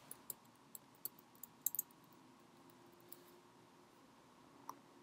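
Faint clicking of a computer keyboard being typed on: a quick run of key taps in the first two seconds, then a single click near the end.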